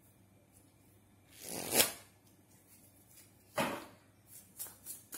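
A deck of tarot cards shuffled by hand, in three bouts. The first swells and ends sharply a little under two seconds in, the second starts suddenly and fades, and a run of short quick shuffles comes near the end.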